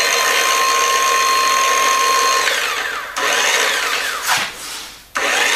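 Makita hypoid circular saw's universal motor running on about 24 volts DC from batteries, with a steady whine. Its trigger is released about two and a half seconds in and the saw winds down, then it is pulsed on and off again, spinning up and coasting down, and started once more near the end.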